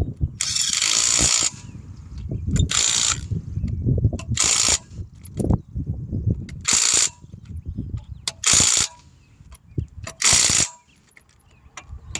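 Ratchet wrench clicking in short bursts, about every second and a half to two seconds, as lug nuts are run down to snug the wheel onto the hub. A low rumble runs underneath.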